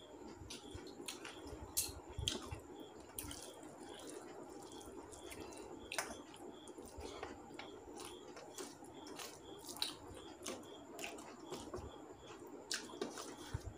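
Eating rice and curry by hand: fingers squishing and mixing wet food on a steel plate, with chewing and small wet clicks and smacks at irregular intervals.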